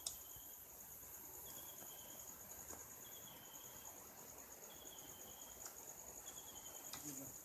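Crickets chirping in a faint, steady high-pitched chorus, with a shorter, lower trill repeating about every second and a half.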